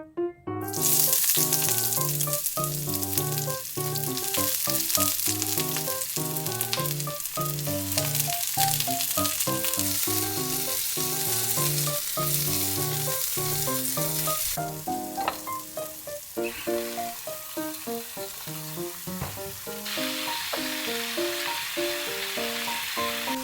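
Food sizzling in a frying pan. The sizzle starts suddenly about half a second in, eases off about two-thirds of the way through and grows louder again near the end, over background music.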